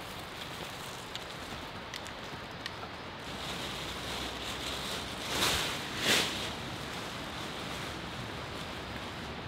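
A tarp crinkling and rustling as it is unfolded, with two loud swishes just past the middle as it is shaken out and spread flat.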